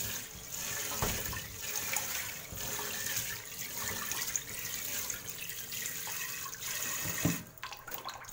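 Tap water running into a metal pot of rice being washed. Near the end there is a knock and the water stops.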